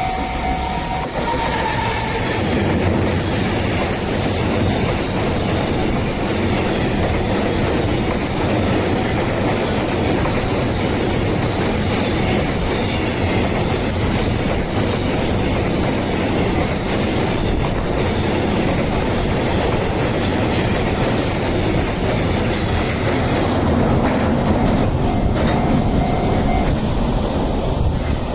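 A long freight train rolling past the level crossing, its wheels clattering steadily over the rail joints.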